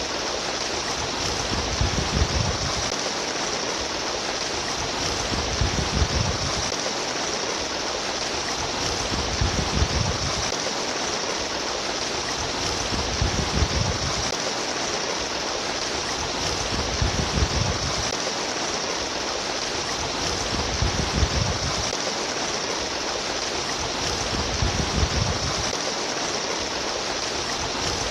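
Steady babbling stream water, with a low rumbling surge that comes back about every four seconds.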